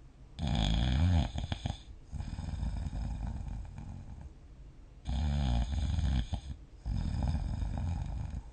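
A sleeping person snoring in long, breath-length snores. The loudest start about half a second in and again about five seconds in, with softer breathing between.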